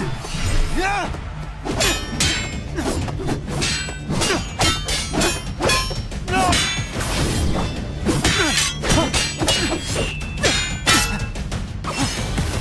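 Fight sound effects from an animated martial-arts duel: a rapid series of hits, thuds and metallic clangs, with short voiced cries of effort, over dramatic background music.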